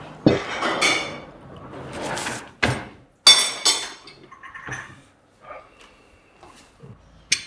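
Dishes being handled and set down: crockery and cutlery clattering, with a few sharp clinks that ring briefly, strongest in the first few seconds, then fainter knocks and one sharp click near the end.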